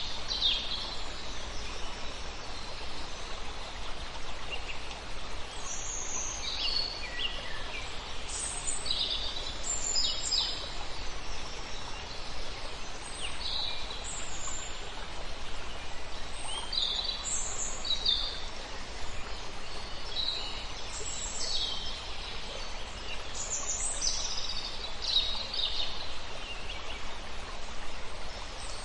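Birds calling and chirping: many short high chirps and trills, several birds at once, over a steady background hiss.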